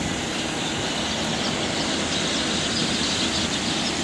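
Steady outdoor background noise with a faint constant hum running through it.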